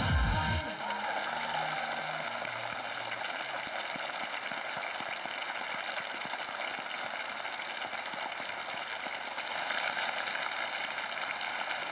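Dance music cuts off under a second in, and an audience's steady applause follows, swelling slightly near the end.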